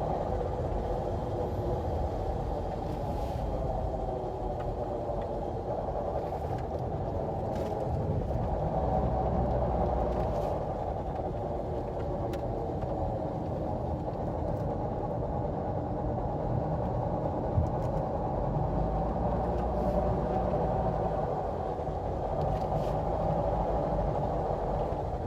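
Honda Step Wagon driving, with a steady drone from a wheel hub bearing under the road rumble. It is an abnormal noise that came on suddenly and grew louder, which the owner suspects is a failing hub bearing.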